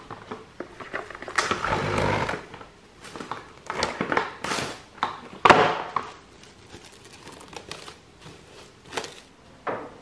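Plastic cling wrap crinkling and rustling around a glass jar in irregular bursts, with a sharp click about five and a half seconds in.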